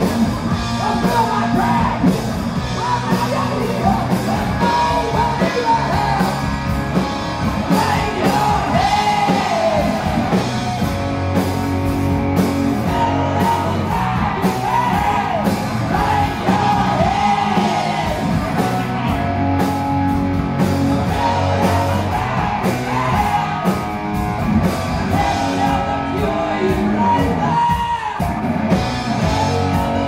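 Live rock band playing: a singer's voice into a microphone over a drum kit and electric guitar.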